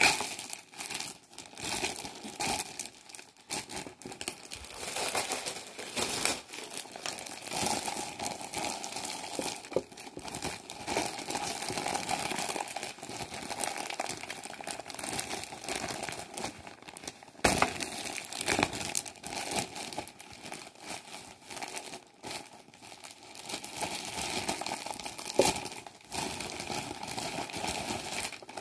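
Clear plastic packaging crinkling as it is handled and unwrapped from a mouse pad, a continuous rustle full of irregular crackles.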